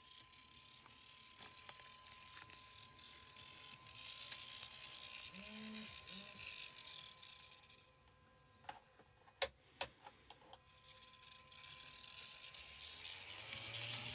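Kato N-scale EF64 1000 model locomotive running on track: its motor and gears whir, growing louder and fading as it passes, then returning. The whir carries the abnormal drive noise that the owner says is still there after Kato's repair. A quick run of sharp clicks comes a little past the middle.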